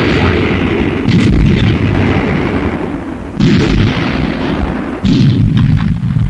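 Artillery guns firing over a continuous low battle rumble: three heavy booms, about a second in, a little past the middle and about five seconds in, each fading away after its onset.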